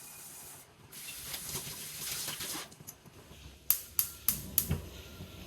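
Kitchen work sounds: a soft rushing hiss, then four sharp clicks or knocks in quick succession past the middle.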